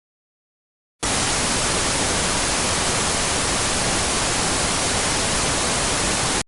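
Steady hiss of TV static (white noise) that starts suddenly about a second in and cuts off abruptly.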